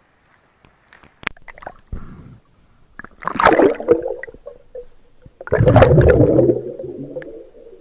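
Water gurgling and bubbling close to the microphone, in two loud bursts about three and five and a half seconds in, the second longer, after a few small clicks.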